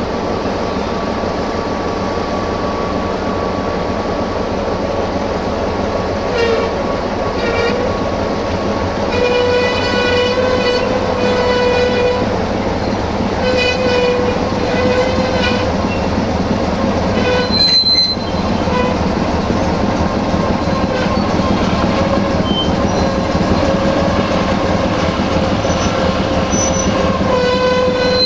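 Diesel-hydraulic shunting locomotive LDH 80-0532-4 running steadily. Over it come several drawn-out pitched tones a second or few long, and one sharp knock about two-thirds of the way through.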